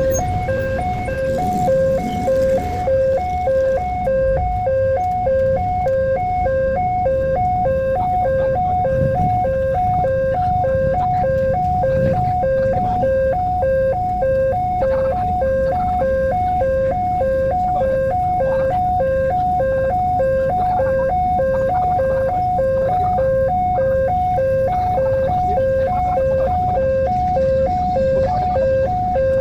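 Railway level-crossing warning alarm sounding continuously, a rapid two-tone high-low electronic signal, over the low rumble of road vehicles waiting or passing.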